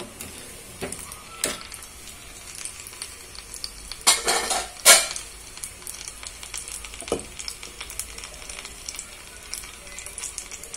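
Medu vada deep-frying in hot oil in a kadai, a steady crackling sizzle of bubbling oil. The oil is still frothing hard around it, the sign that the urad dal vada is not yet cooked through. A metal slotted skimmer knocks and scrapes against the pan a few times, loudest about four to five seconds in.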